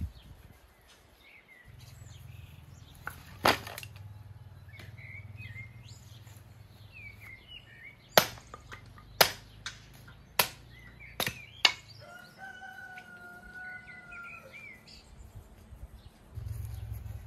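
Axe splitting firewood into kindling on a stump chopping block: five sharp chops, roughly a second apart, with a single knock earlier. Small birds chirp throughout.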